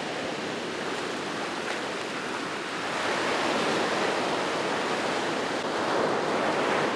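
Ocean surf breaking and washing up the sand, a steady rush that swells louder about three seconds in.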